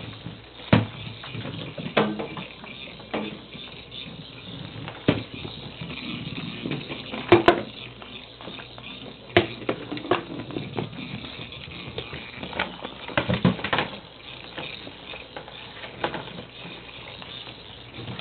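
Ferrets scrabbling over a tile floor while a small motorized toy ball rolls and knocks about, giving irregular sharp knocks and clicks over a rustling scuffle. The loudest knocks come a little before halfway and again past two-thirds of the way through.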